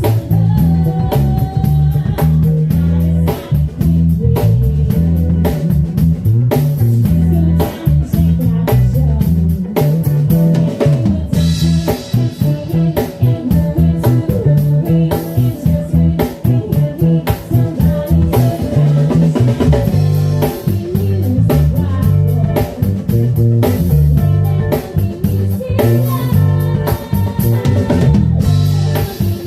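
A live band playing a funky number: drum kit, electric guitar and bass guitar, with a heavy, busy bass line and some singing.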